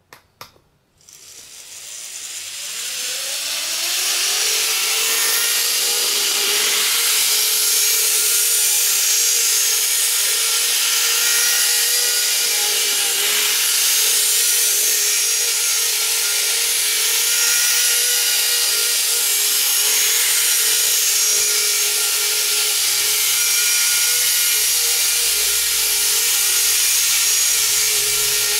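Two clicks, then the electric motors of two 103-series model trains whining higher as the trains speed up over the first few seconds. They then run steadily around the track with a hiss of wheels and gears on the rails.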